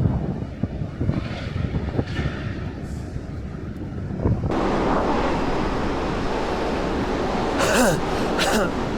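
Strong wind buffeting a small camera microphone in gusty low rumbles. About halfway through it switches abruptly to a steadier, brighter rush of wind noise.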